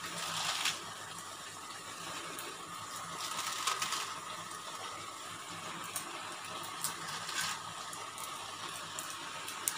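Potato and spice masala sizzling steadily in a kadai under a heap of freshly added shredded cabbage, with a few light clicks.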